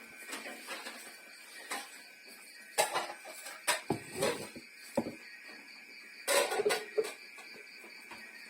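Irregular knocks and short clatters of dishes and cooking utensils being handled, the loudest cluster a little past the middle. A steady high-pitched tone runs behind them.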